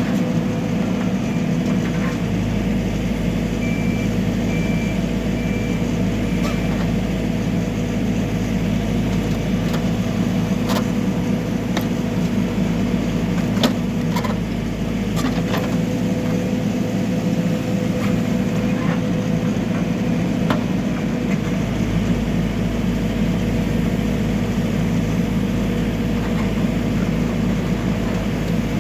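Backhoe loader's diesel engine running steadily, with a few sharp knocks around the middle and a short run of four high beeps a few seconds in.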